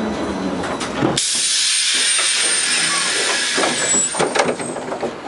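Compressed-air hiss from the LM-68M tram's pneumatic system: a sudden loud hiss begins about a second in and lasts about three seconds, followed by a few clicks and knocks as it dies away.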